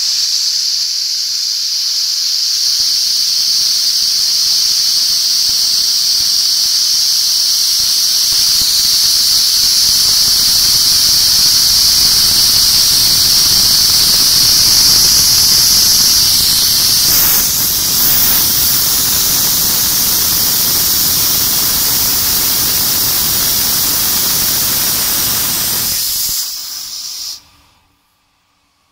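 Compressed air hissing out of an opened brass valve on an Earth Fuji 10 hp air compressor's line below the pressure gauge, bleeding off tank pressure. It is a loud, high, steady hiss with a lower noise building underneath from about eight seconds in, and it cuts off abruptly near the end.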